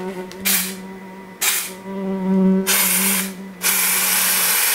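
A fly buzzing steadily while an aerosol spray can is sprayed upward in four hissing bursts, each longer than the last. The buzzing stops during the last, longest spray near the end.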